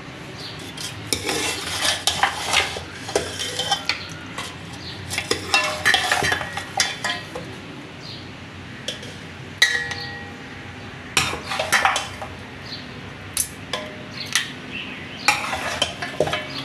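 Metal spoon scraping and clinking against a cooking pot while mutton is stirred or served, in several short bursts with pauses between.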